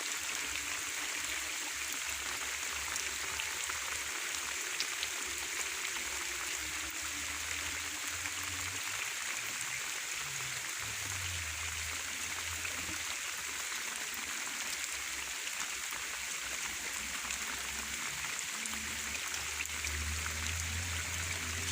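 Steady rain hiss, with a faint low hum that comes and goes.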